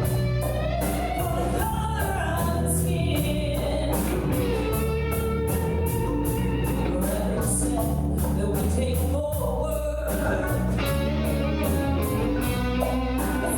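Live band playing a song through a PA: sung vocals over bass and a steady drum beat with regular cymbal hits.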